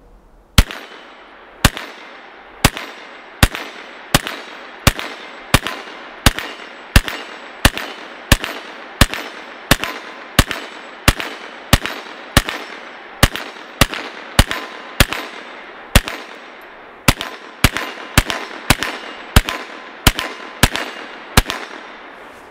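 Ruger PC Carbine 9mm semi-automatic rifle firing about thirty single shots in steady slow fire, roughly one to two a second and a little faster near the end, each with a short echoing tail. The hollow-point rounds feed and fire without a malfunction.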